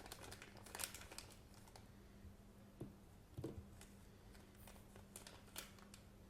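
Faint handling noises: a few light clicks and rustles as a small EDC multi-tool is turned over in the hands, over a low steady hum.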